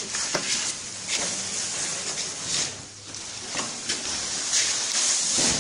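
A steady hiss with scattered soft clicks and rustles: handling noise from a handheld phone microphone moving about while filming.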